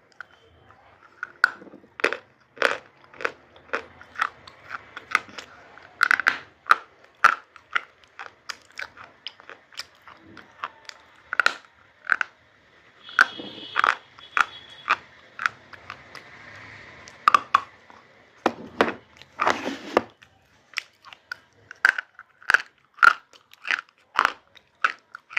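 Close-up biting and chewing of hard, brittle food: a run of crisp crunches, about one or two a second, with a pair of longer crunches about twenty seconds in.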